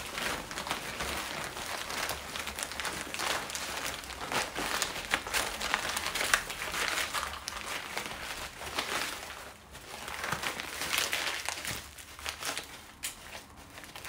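Stiff sego gele fabric rustling and crinkling with quick crackles as it is twisted and wrapped around the head; quieter near the end.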